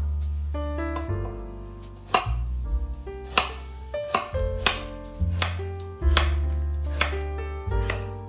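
Large kitchen knife chopping a firm, raw root vegetable on a wooden cutting board: irregular sharp knocks of the blade meeting the board, about a dozen in all. Gentle piano music plays underneath.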